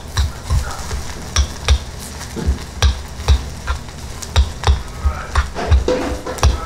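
A spoon stirring and scraping in a bowl of gondeure-bap, over background music with a steady low beat.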